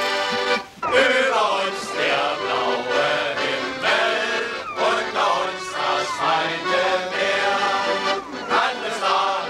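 Men's choir singing a welcome song, accompanied by an accordion; the singing comes in about a second in, after a held accordion chord breaks off.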